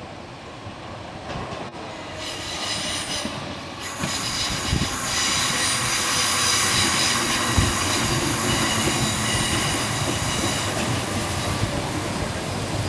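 Merseyrail electric multiple unit (PEP-family stock) drawing near and growing louder over the first few seconds, then running loudly through the station with a steady high squeal from its wheels on the rails.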